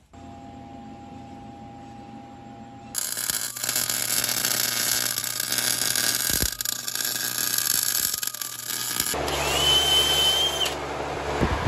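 A steady hum with a few pitched tones, then the crackling hiss of an electric welding arc for about six seconds while brackets are tacked onto the truck's frame. Near the end a small power tool whines up in pitch and holds for about a second over machine noise.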